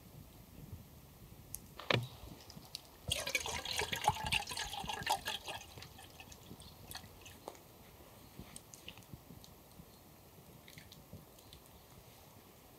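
Water poured from a plastic bottle into a pot for about two and a half seconds, after a single sharp click, with scattered faint ticks afterwards.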